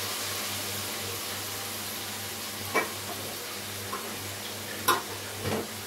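Potato and green-bean sabzi sizzling steadily in oil in an iron karahi, a constant hiss. Two sharp clicks sound, one near the middle and one near the end, followed by a small knock.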